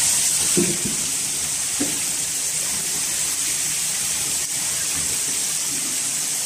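Water pouring down from a leaking ceiling onto a flooded floor: a steady, even rushing splash.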